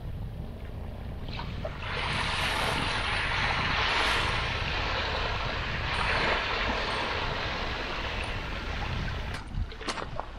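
Outdoor rush of wind and water over a steady low rumble. The hiss swells up a couple of seconds in, peaks twice and then eases off.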